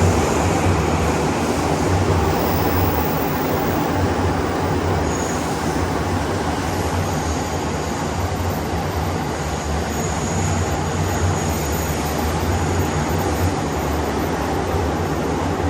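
JR East E235-1000 series electric train running through an underground section, heard from on board: a steady rumble of wheels and motors, with faint high inverter tones coming and going above it, echoing in the tunnel.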